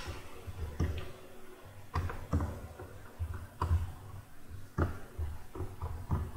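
Computer mouse clicking at irregular intervals, about a dozen short clicks, over a low rumble.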